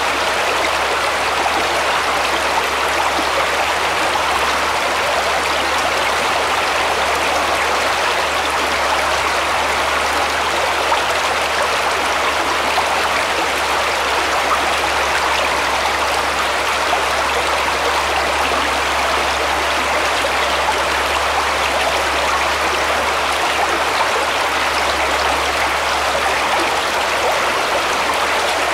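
A shallow woodland brook flowing over stones in a small riffle: a steady, unbroken rush of running water.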